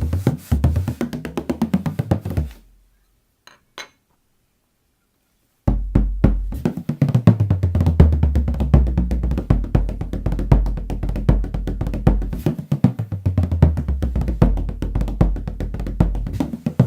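An 18-inch Walton's tunable bodhrán played in a fast, steady run of strokes with a deep booming tone. The playing stops about two and a half seconds in, leaving near silence with two light taps, then starts again abruptly almost six seconds in.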